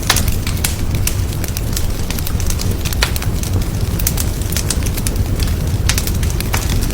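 Wood fire in a fireplace crackling, with many irregular sharp pops and snaps over a steady low rumble of the flames. Louder pops come about three seconds in and around six seconds in.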